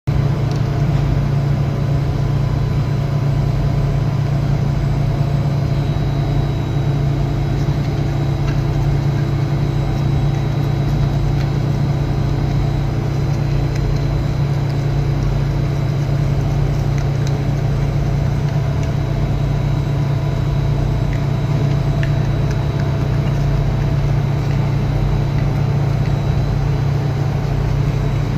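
Heavy machinery running steadily with a loud, even low hum and a few steady higher tones, unchanging throughout.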